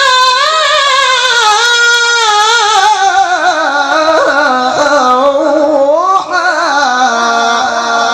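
A male Quran reciter's voice in a long melismatic phrase of tilawah, sung high with vibrato and quick ornamental turns. It slides gradually down in pitch, climbs again briefly about six seconds in, and settles on a lower held note near the end.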